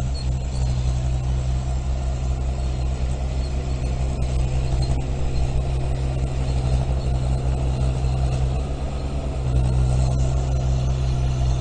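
Heavy equipment's diesel engine running steadily, dipping slightly about three-quarters of the way through and then a little louder.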